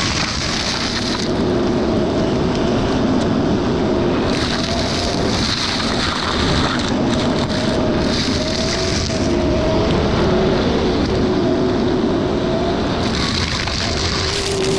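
Excavator engine and hydraulics running under load while a forestry mulcher head grinds brush and small trees. The sound is a steady, loud noise with a hum that shifts in pitch, and a higher hiss swells and fades several times as the head works.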